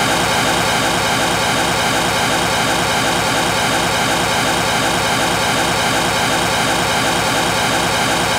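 Pink noise test signal from the Spatial Audio Calibration Toolkit disc, played through the speakers to check a speaker pair's phantom image: a loud, steady hiss that cuts off abruptly at the end.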